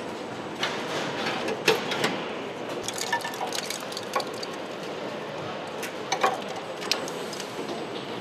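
Car assembly-hall background noise, with irregular small clicks and knocks of parts and wiring being handled.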